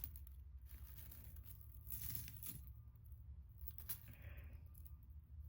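Faint, intermittent rustling of tangled necklaces being handled and pulled apart, over a low steady hum.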